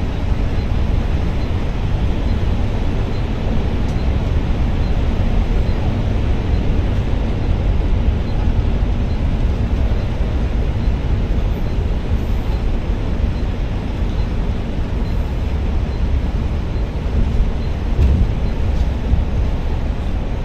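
Steady engine and road rumble from a coach bus driving at speed, with a brief bump near the end.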